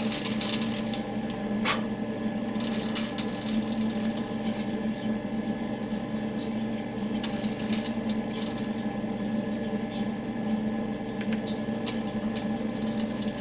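Steady low machine hum in a workshop with scattered light clicks and ticks, and one sharper click about two seconds in, while the metal lathe's chuck stands still.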